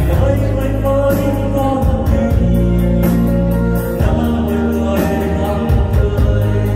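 A Vietnamese Buddhist devotional song: singing over a backing track with a steady bass line and a regular beat.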